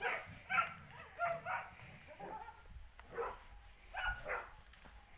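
A dog making short, high whines and yips, about eight calls with gaps between them.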